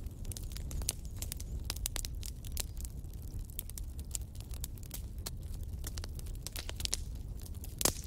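Fire burning in a fireplace, crackling with irregular sharp pops over a low steady rumble; one louder pop comes near the end.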